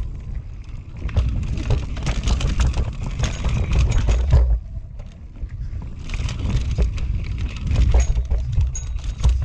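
A full-suspension mountain bike ridden fast down a dry, rocky dirt trail, heard from a rider-mounted camera: tyres rumbling and skidding over dirt and rocks, with frequent knocks and rattles from the bike as it hits roots and stones. It eases briefly about halfway through.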